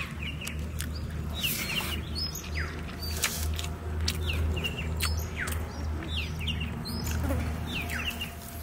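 Small birds chirping: short, high calls that slide downward, repeated every second or so, over a steady low rumble.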